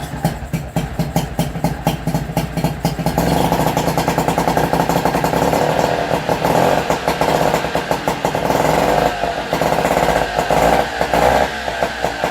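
Nissan 5 hp two-stroke outboard motor catching and running with a rapid, uneven firing beat, getting louder about three seconds in. It has just been revived from a no-start by getting fuel flowing into the carburettor bowl.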